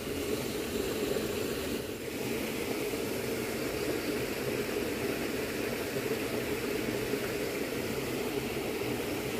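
Steady rushing background noise with a fainter hiss above it, unchanging throughout.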